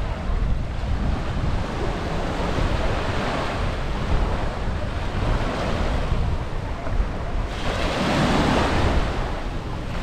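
Small waves washing up on a sandy shore, with wind buffeting the microphone. One wave washes in louder about eight seconds in.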